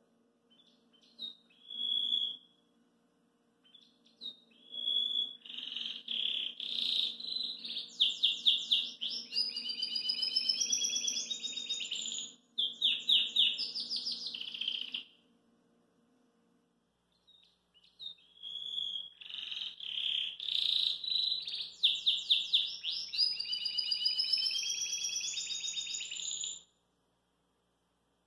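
Domestic canary singing: a few short chirps, then two long song phrases of fast trills and rolling warbles separated by a pause of a few seconds. The second phrase stops abruptly near the end.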